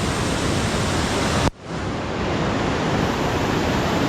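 Steady roar of a waterfall's falling water. About one and a half seconds in the sound cuts out abruptly and comes back within half a second.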